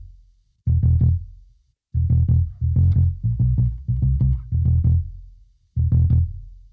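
Electric bass guitar played alone in short phrases of plucked notes. Each phrase ends with its last note ringing and dying away to silence before the next begins, with a longer run of notes in the middle.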